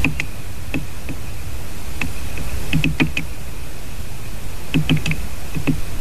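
Great spotted woodpecker pecking at wood close to the microphone: irregular sharp taps, some in quick clusters of three to five, over steady wind noise.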